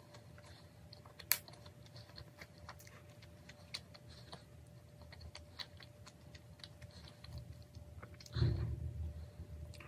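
Close-up chewing of a soft cream-filled doughnut: many quiet, wet mouth clicks and smacks, with one sharper click about a second in. A louder, low, muffled sound lasting about a second comes near the end.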